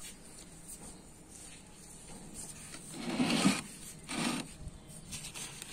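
A hand mixing neem cake into potting soil in a terracotta pot, scraping and rustling: two short scrapes about three and four seconds in, the first the loudest, then a fainter one.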